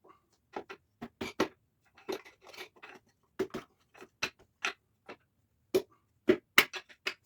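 Irregular sharp clicks and clinks, some in quick pairs, from hand tools and engine parts being handled during a small-block engine teardown.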